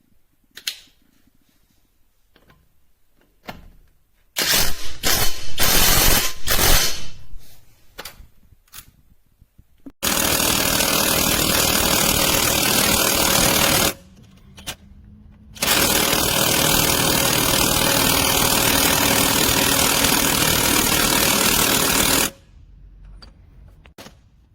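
Cordless impact wrench hammering: a few short bursts, then two long runs of several seconds each with a brief break between.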